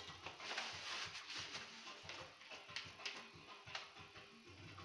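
Paint being worked onto a stretched canvas in short, faint scraping strokes.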